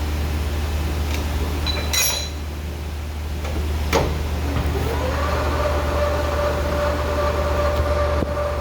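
Lathe running with a steady low hum. There are two sharp clicks, then from about halfway a tone that rises and holds steady.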